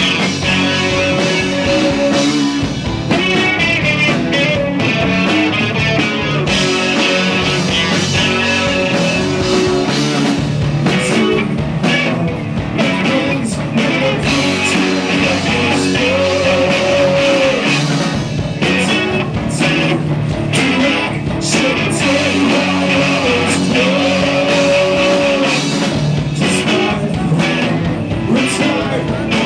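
Rock band playing live: electric guitars and drums, with singing.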